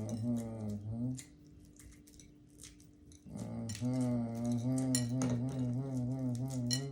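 Light clicks and clinks of boiled eggshells being cracked and picked off. Over them a low, steady hum runs for about the first second and again from about three seconds in to the end.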